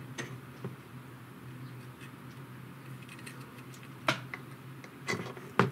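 A few short, sharp clicks and taps from small drone electronics being handled and a connector being plugged in, over a steady low hum.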